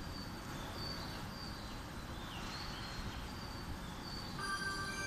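Station platform hum with short, repeated bird-like chirps. About four seconds in, a station departure melody starts with several steady electronic tones.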